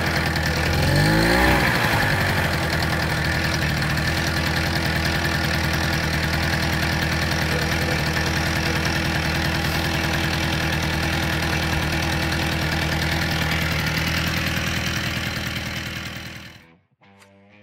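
Tomos Automatik A3 moped's small two-stroke single-cylinder engine running on its first start after reassembly: a brief rev in the first two seconds, then a steady idle that fades out near the end.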